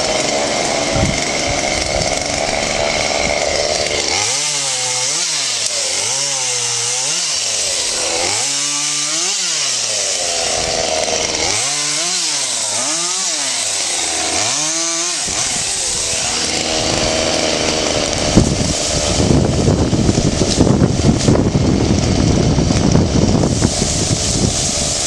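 Chainsaw running, its engine revved up and down about once a second for several seconds in the middle. A sudden crack comes about eighteen seconds in, followed by louder, rougher noise.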